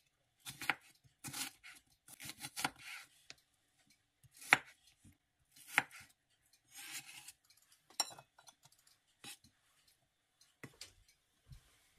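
Chef's knife slicing an onion on a bamboo cutting board: crisp cuts through the onion and the blade knocking the board at irregular intervals, the two loudest knocks about four and a half and six seconds in.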